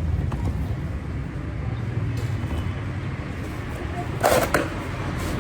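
Steady low rumble of a running engine, with a short, louder noise about four seconds in.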